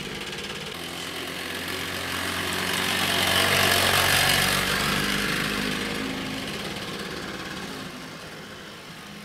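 Rokon Trail-Breaker two-wheel-drive motorcycle's small two-stroke engine running as the bike rides past. It grows louder to a peak about four seconds in, then fades as the bike pulls away.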